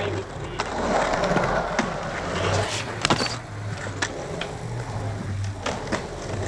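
Skateboard wheels rolling over the concrete of a pool bowl, loudest as the rider passes close at the start and fading as they carve away. A series of sharp clacks from boards and trucks striking the concrete cuts through, the loudest about three seconds in.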